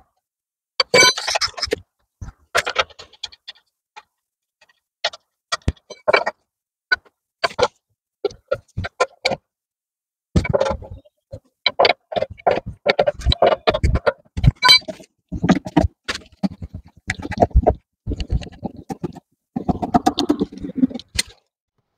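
Irregular metallic clicks, knocks and clatter of hand tools as a car wheel is refitted and its bolts done up, sparse at first and busier in the second half.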